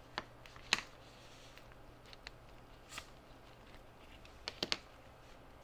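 Small sharp clicks and ticks of tiny metal springs and contacts being worked out of a clear plastic contact block by rubber-gloved fingers. About eight scattered clicks, the loudest about three-quarters of a second in, with three in quick succession about two-thirds of the way through.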